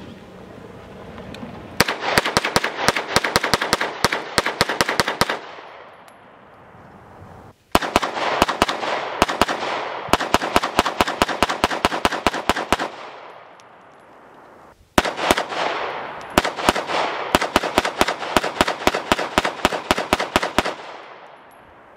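CZ Scorpion Evo Micro 9mm carbine fired in three long strings of rapid shots, each lasting a few seconds, with short pauses between them.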